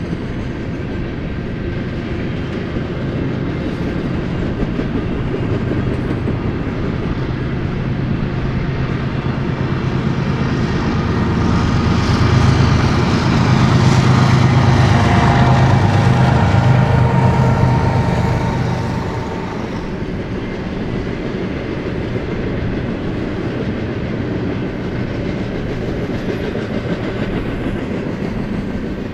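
Double-stack intermodal freight train rolling past with steady wheel and rail noise. About halfway through, a mid-train BNSF diesel locomotive goes by, and its engine grows loud and then fades as the container cars follow.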